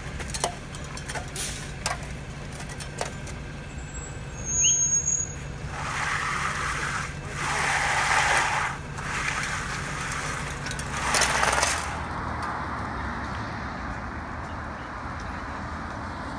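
Ready-mix concrete truck running during a pour, a steady engine hum with a few sharp clicks and several louder rushing bursts as wet concrete comes down the chute and is shovelled and screeded. The hum and bursts stop about twelve seconds in, leaving a quieter steady background.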